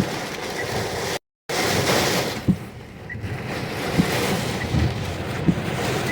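Storm wind rushing and buffeting against a car, with soft low knocks every second or two. The audio cuts out completely for a moment about a second in.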